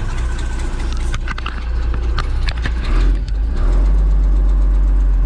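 Case wheel loader's diesel engine running just after a cold start, heard from inside the cab. There are a few clicks early on, and about three seconds in the engine note steadies and grows louder and deeper.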